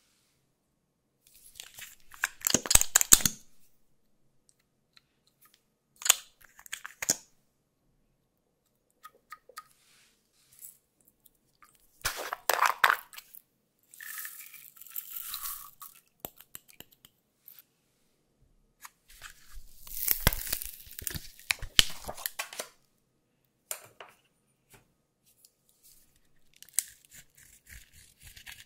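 Bursts of crackly, crunchy handling noise with quiet gaps between: glitter shaken from a plastic jar and pattering onto clear slime in a glass dish, then pressed eyeshadow scraped and crumbled out of a palette with a dotting tool near the end.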